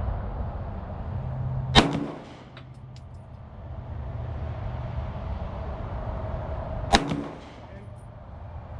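Two pistol shots about five seconds apart, each a sharp crack with a short echo trailing after it, over a steady low rumble.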